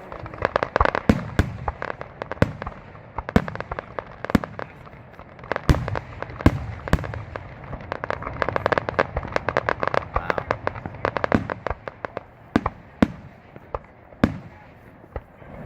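Many fireworks going off, a rapid irregular string of sharp bangs and pops over crackling. The bangs thin out to scattered single reports after about twelve seconds in.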